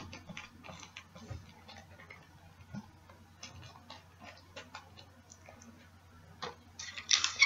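Hands handling a paper craft piece covered in clear tape: faint scattered clicks and rustles, then a louder scratchy rasp near the end.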